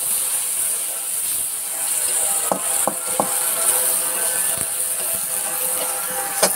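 Ground masala frying in a metal wok, sizzling steadily after a splash of water, while a metal spatula stirs and scrapes it. The spatula clicks sharply against the pan a few times around the middle and once, loudest, near the end.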